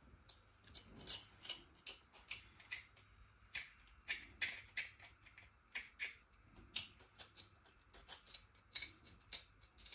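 Faint, irregular clicks and scrapes, two or three a second, as the seeds are scooped out of a halved tomato.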